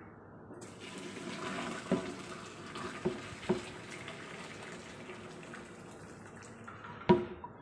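Hot cooking water from parboiled pork ribs poured out of a stainless-steel pot into a stainless-steel sink, the stream splashing from about half a second in. A few sharp knocks come during the pour, the loudest near the end.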